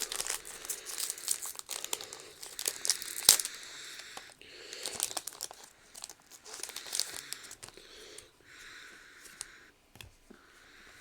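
Foil trading-card booster pack wrappers crinkling and tearing as packs are opened, with one sharp snap about three seconds in; the handling turns quieter after about seven seconds.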